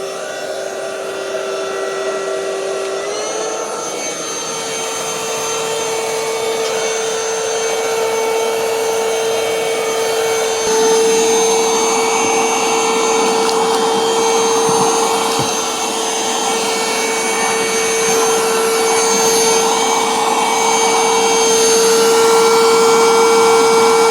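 Cordless vacuum cleaner motor running with a steady whine. Its pitch steps up about three seconds in and again about eleven seconds in, and it runs louder after the second step.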